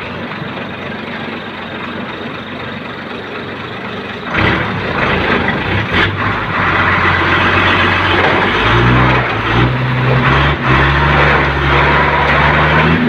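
REO 6x6 truck's engine running steadily, then revved hard about four seconds in and held at high revs under load, the truck laden with bamboo.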